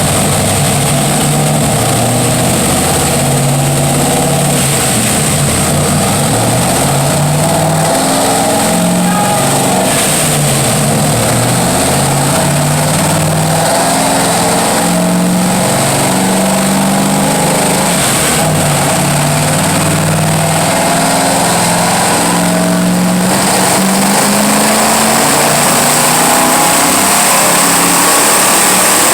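A 1991 Chevy S10's 360 small-block Chevy V8 runs hard on a dyno, loud throughout. Its pitch climbs in steps and drops back again and again, like runs through the gears of its five-speed.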